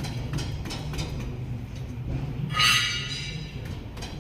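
Metal tools or parts knocking and clinking, with one loud ringing metal clink about two and a half seconds in, over a steady low hum.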